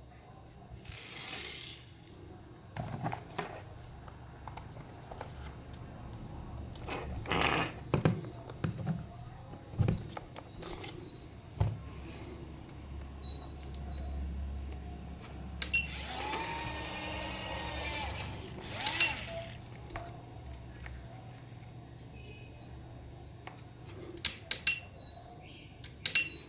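Small power tool or electric motor whirring for about two seconds midway, among scattered clicks and knocks of parts being handled.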